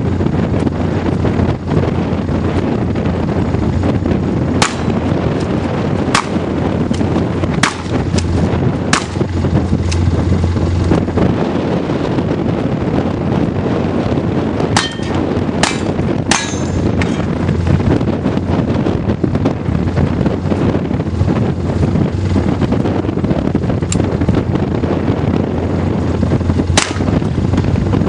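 Scattered single shotgun shots, about nine in all, fired in ones and quick pairs and threes, over steady wind buffeting the microphone.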